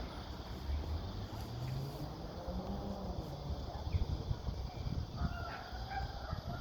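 Outdoor ambience: a steady low rumble, with a few short bird calls near the end.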